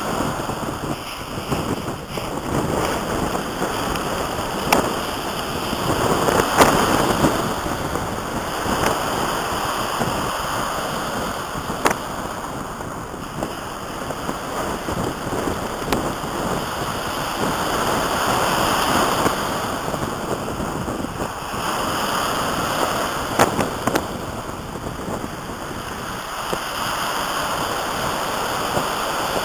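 Small waves breaking and washing up a pebble shingle beach, the surf swelling and easing every few seconds, with wind rumbling on the microphone.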